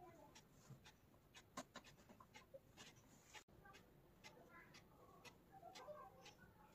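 Near silence with faint rustling and small clicks of satin fabric being handled and pinned on a dress form.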